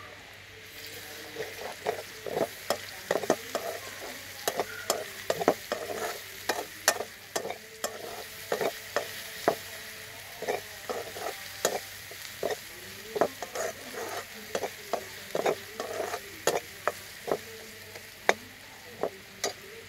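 Metal slotted spatula scraping and knocking against a steel kadai as onions and green chillies fry in oil, over a steady sizzle. The strokes come irregularly, a few a second, starting about a second in.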